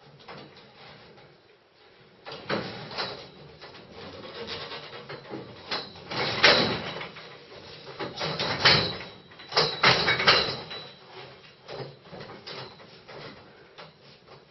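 Hands and bare feet gripping, sliding and knocking on steel scaffolding tubes as a person swings and climbs along the bars, with the frame rubbing. The noises are irregular, start about two seconds in, are loudest in the middle and fade after about eleven seconds.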